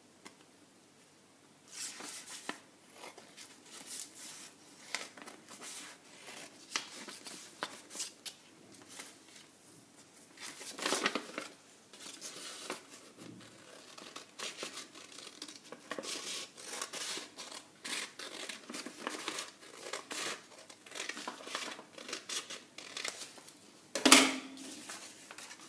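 Scissors snipping through a paper pattern in an irregular run of cuts, starting about two seconds in, with paper rustling as the cut pieces are handled. A louder paper rustle comes near the end.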